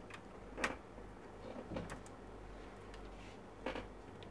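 Light handling of multimeter probes and their leads on a laptop motherboard and silicone work mat: a few small, scattered clicks and taps over a low steady hum.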